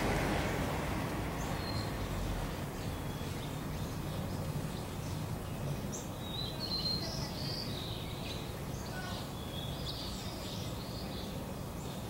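Small birds chirping in the surrounding trees, short high calls that come more often from about halfway through, over a steady rumble of distant car traffic that eases after the first couple of seconds.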